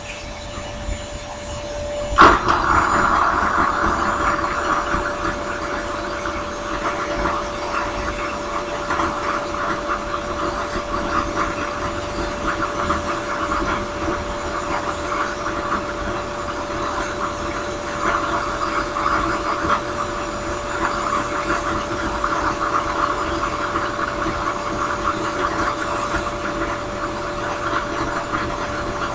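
Drill press spinning a sanding drum with a steady hum, and from a sharp tap about two seconds in, the hiss and rasp of briar wood being sanded against the drum, rising and falling as the pipe is pressed and moved.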